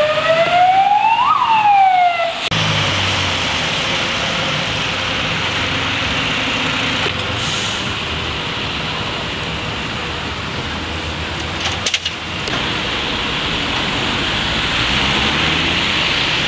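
An emergency vehicle's siren sweeps up in pitch and back down once, then cuts off abruptly after about two and a half seconds. After that, a steady hiss of traffic on a wet street, with a couple of brief clicks about twelve seconds in.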